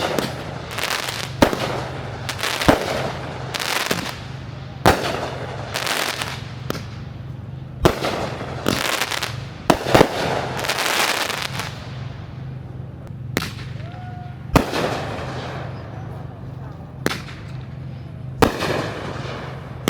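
Fireworks bursting overhead: about fifteen sharp bangs at uneven intervals, roughly one every second or two, with crackling and fizzing between them.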